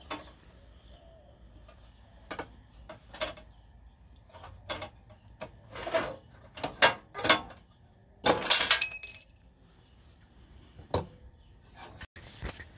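Irregular clinks and knocks of metal parts or tools being handled, about a dozen in all. About eight seconds in there is a longer, ringing metallic rattle, the loudest part.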